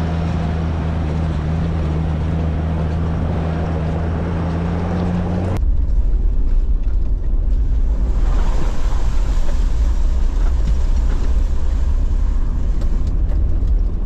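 Toyota LandCruiser Troopcarrier's engine running with a steady, unchanging note. About five and a half seconds in, an abrupt cut leads to a rougher rumble of the vehicle with no steady engine note.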